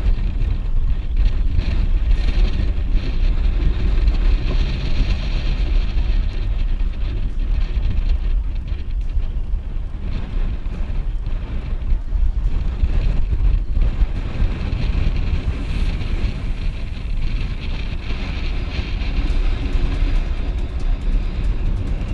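Strong storm wind on the microphone, a heavy steady rumble, over choppy water splashing around a kayak.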